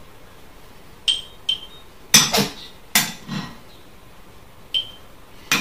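A metal spoon knocking and scraping against a ceramic plate and a glass jar while cooked oat porridge is spooned out. There are a few sharp clinks with a short ringing tone and two louder knocks in the middle.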